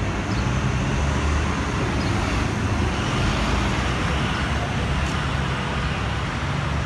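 Steady city street traffic noise with the low, continuous rumble of idling paratransit minibus engines close by.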